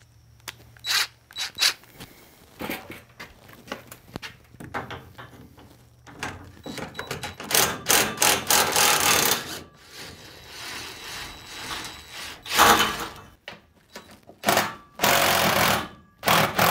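DeWalt 20-volt impact driver hammering lag bolts out of a sliding-door rail, in several bursts. The longest lasts about two seconds, some eight seconds in, and shorter ones follow near the end. Before it come scattered clicks and knocks.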